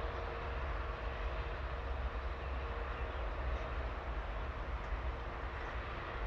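Diesel-electric locomotive of an approaching passenger train, heard from a distance as a steady low rumble.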